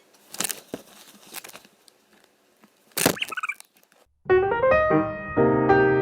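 A few scattered clicks and a short sharp noise, a moment of silence, then piano music starts about four seconds in.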